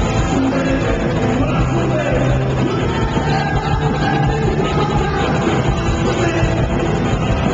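Live punk rock band playing loud, with distorted electric guitar, bass and drums under a singer's vocals.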